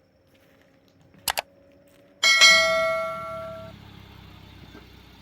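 Two sharp double clicks, then a single loud bell-like metallic strike that rings with several clear tones and fades over about a second and a half.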